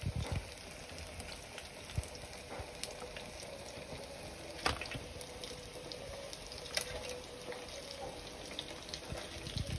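Breaded pork fillets deep-frying in a pan of hot oil: a steady sizzle with scattered crackles and pops, and a few sharp clicks.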